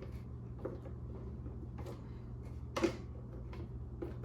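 A few light clicks and one sharper knock about three seconds in, from hand-fitting the screws of the plastic lens and front bezel onto a Ford F-series instrument cluster, over a steady low hum.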